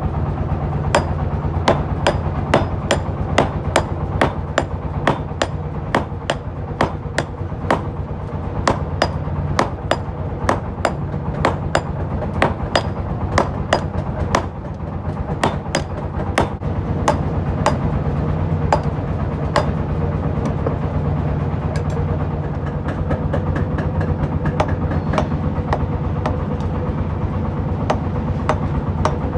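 Hand hammer forging a red-hot steel knife blade, cut from a tractor disc, on a small steel anvil block: rapid ringing blows, about three a second, that thin out to scattered strikes in the last third. A steady low hum runs underneath.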